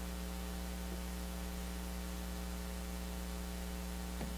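Steady electrical mains hum with a light hiss underneath, running without change.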